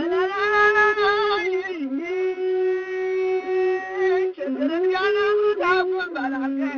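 Ethiopian azmari music: a single melody of long, held notes with a wavering ornament, dipping briefly to a lower note several times.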